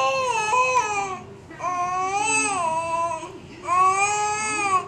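Baby making three drawn-out vocal noises, each one to one and a half seconds long, rising and then falling in pitch.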